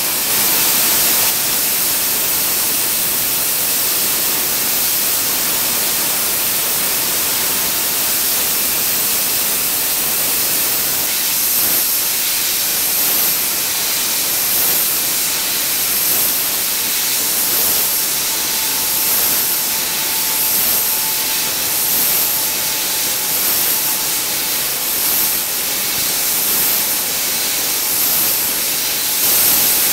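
Nakanishi HTS-1500 air turbine spindle running at 150,000 rpm: a steady loud air hiss with a faint steady whine under it, as a tiny carbide ball end mill cuts hardened steel. In the second half the highest hiss swells slightly about every second and a half.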